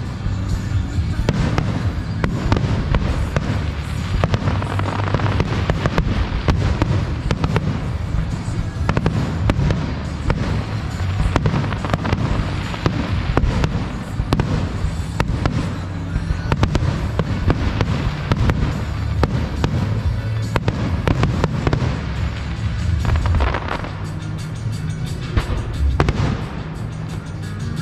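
Fireworks display: a dense run of sharp bangs and crackles in quick succession, with music playing underneath.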